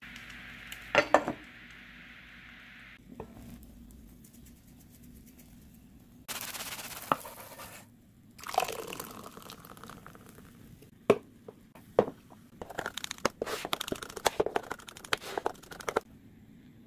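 Broccoli egg pizza frying in a nonstick pan, a steady sizzle with a few clacks about a second in as the lid goes on. Later come scattered knocks and a run of crisp crunching and crackling, the browned crust being cut into slices on a wooden board.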